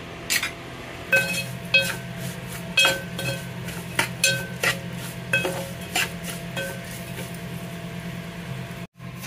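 Steel spoon stirring and scraping vermicelli and nuts frying in ghee in an aluminium pan, with irregular clinks against the pan about twice a second, over a steady low hum.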